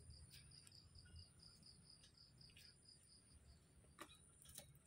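Near silence in a garden: a faint insect chirping in an even pulsed rhythm, about eight pulses a second, that stops about three seconds in, with two faint clicks near the end.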